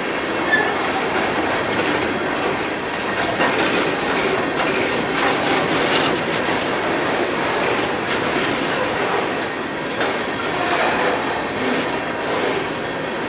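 Aluminum coal gondola cars of a freight train rolling past close by: a steady rumble of steel wheels on rail with clickety-clack as the wheels cross rail joints, and a brief faint wheel squeal about half a second in.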